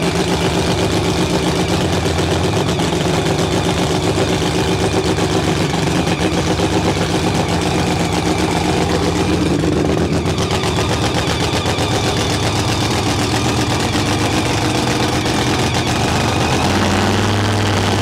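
Supercharged nitro funny car V8 cackling at idle through open zoomie headers: a loud, rapid, steady chain of exhaust pulses. Its note changes slightly near the end.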